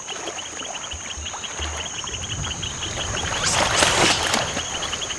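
Rhesus macaques splashing and thrashing in shallow water, loudest from about three and a half seconds in as one leaps into the pool, over a steady chorus of chirping insects.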